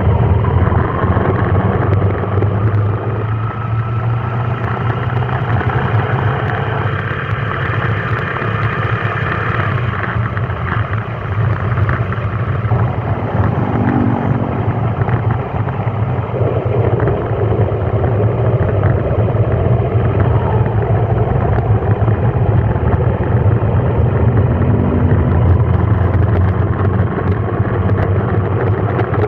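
A road vehicle driving: steady engine and road noise with a strong low hum, and faint tones that slowly slide up and down in pitch as the engine speed changes.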